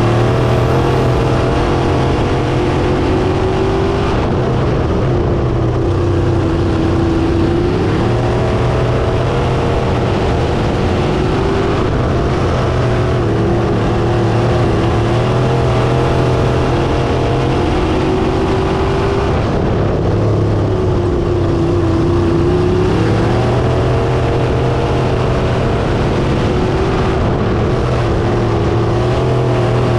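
Crate sprint car's V8 engine heard from the cockpit, running hard around a dirt oval, its pitch climbing and dropping again every few seconds as the driver accelerates and lifts.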